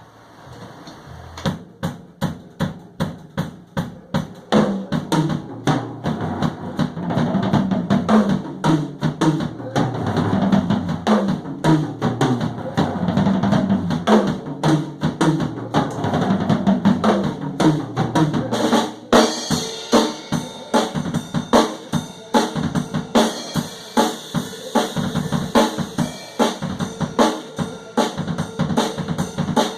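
Drum kit being played in a steady rhythmic beat of drum strokes, growing louder over the first few seconds; about nineteen seconds in, cymbals join with a bright wash over the beat.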